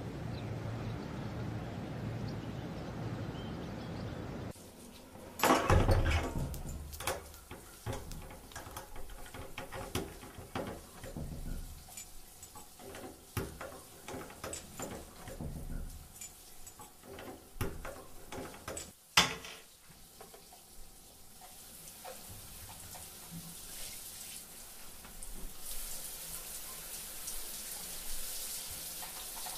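A steady noise that cuts off abruptly a few seconds in, then scattered knocks, clicks and thuds of things being handled in a room, with one sharp bang about two-thirds of the way through. Near the end a shower starts running with a steady hiss of spraying water.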